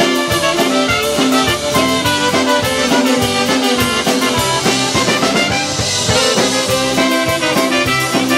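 Live band playing: trumpet and saxophone sounding together over a drum kit keeping a steady beat.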